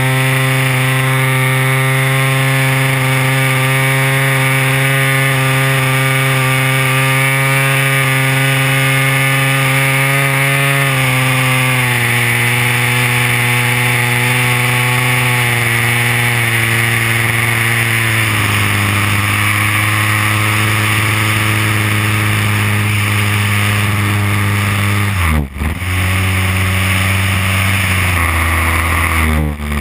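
DLE 30cc single-cylinder two-stroke gas engine of an RC Beaver model, heard close up from on board in flight. It runs steadily at high throttle, drops in pitch in two steps as the throttle is eased back, then dips sharply and recovers twice near the end.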